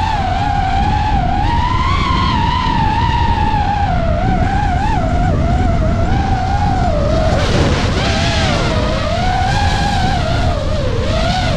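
DJI FPV drone's propellers and motors whining in flight, the pitch wandering up and down as the throttle changes, over a steady low rush of wind. About seven seconds in the sound turns harsher and hissier for a moment as the pitch dips.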